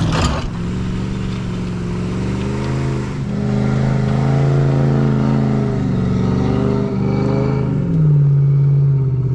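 Car engine working hard under load while pulling a heavy weight uphill. Its pitch sags about three seconds in, climbs again, then drops near the end as it eases off.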